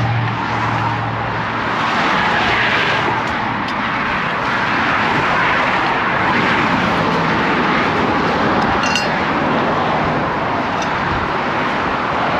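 Fast-lane highway traffic rushing past at speed: a steady roar of tires and wind, swelling as vehicles go by.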